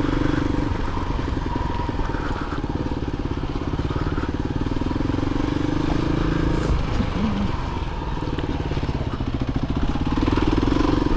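Kawasaki KLR 250 dual-sport motorcycle's single-cylinder four-stroke engine running under way, with even firing pulses. The engine eases off a little past the middle and picks up again near the end.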